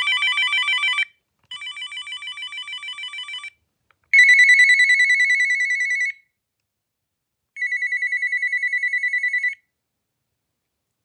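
Uniden EXP7900 cordless phone's electronic ringer playing ringtones in four bursts of about two seconds. The first two are a warbling, trilled ring, the second of them quieter. The last two are a fast-pulsing ring on one pitch, the first of these the loudest and fading away.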